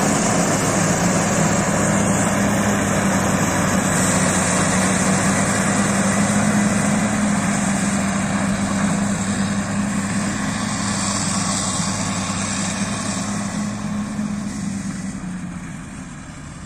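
Caterpillar 140K motor grader's diesel engine running steadily with a low hum as it works close by, then growing fainter over the last few seconds as the grader pulls away.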